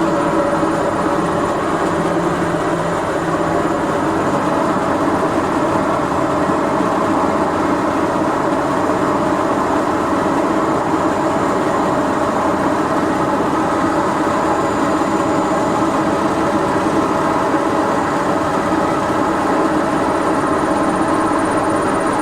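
Washing machine running with a loud, steady rumble from its failed drum bearings.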